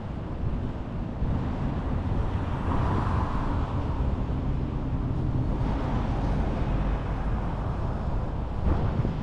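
Wind rumbling on the microphone over the steady noise of cars and a motorcycle passing on the road alongside, swelling briefly about three seconds in; a single sharp click near the end.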